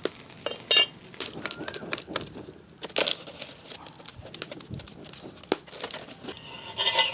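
Wood-and-charcoal cooking fire crackling, with scattered sharp pops and a denser run of crackle near the end.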